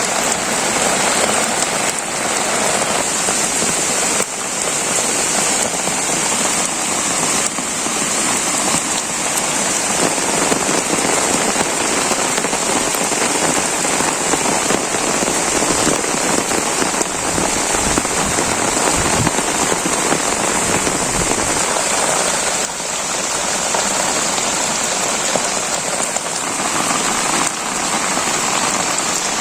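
Heavy rain falling steadily, a continuous downpour with no let-up.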